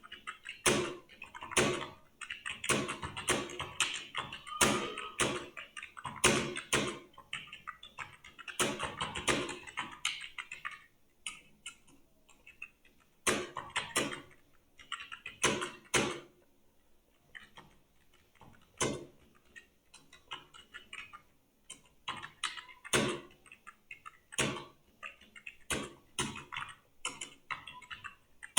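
Typing on a computer keyboard: runs of quick keystrokes with short pauses between them, busier in the first ten seconds and more scattered after.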